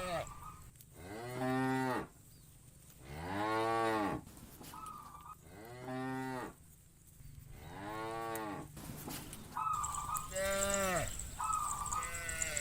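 Cows mooing in turn: about six long moos, each rising then falling in pitch, a second or two apart. Shorter, higher calls fall between them.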